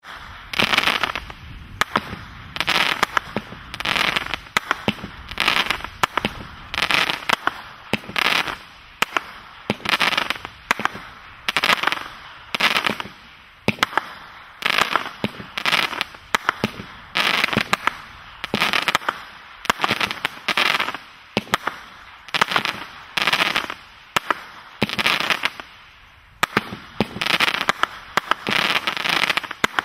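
Jack Frost consumer fireworks cake firing shot after shot in a steady rhythm, a little more than one a second. Each shot is a sharp report followed by the crackle of its crackling-rain burst.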